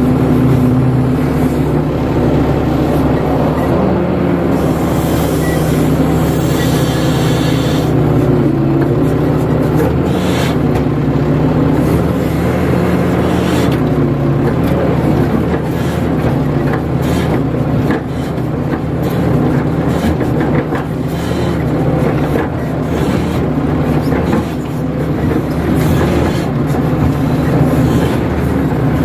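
KATO crawler excavator's diesel engine and hydraulics running steadily under working load, heard from the operator's cab as the arm and bucket move, the engine note wavering slightly as the load changes.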